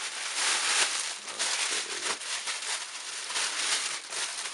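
Packaging crinkling and rustling in uneven bursts as a shirt is handled and unwrapped.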